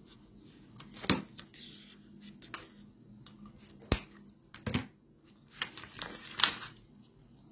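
Handling noises from unpacking a ratchet pruner: a few sharp clicks and snaps, about a second in, around four and five seconds in, and a short burst of rustling and clicking near the end.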